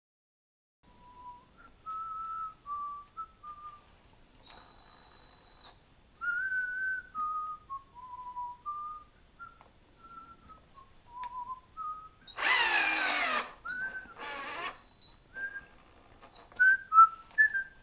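A person whistling a tune, one short note after another, over short runs of a power tool. The loudest tool run, about two-thirds of the way through, falls in pitch as it winds down.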